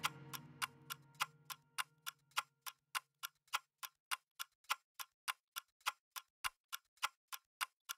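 Steady, even ticking, about three and a half ticks a second, with nothing in between. The last of a music track dies away under it in the first few seconds.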